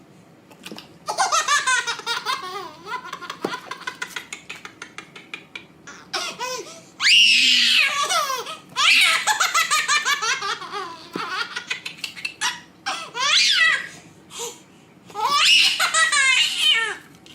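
A baby laughing in repeated fits: quick runs of giggles in the first few seconds, then louder belly laughs in bursts from about seven seconds in.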